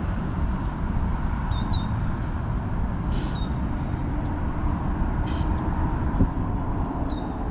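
Steady low rumbling background noise, with a few brief faint high chirps.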